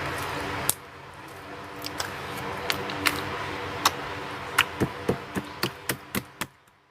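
Sharp clicks and pops of wood-glue slime mixed with play corn being pressed and poked. Near the end comes a run of evenly spaced clicks, about four a second, that fade away.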